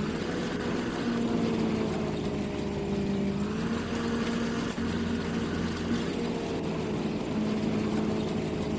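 Combine harvester running steadily while harvesting wheat: a continuous engine drone that wavers slightly in pitch, with the noisy whirr of the machinery under it.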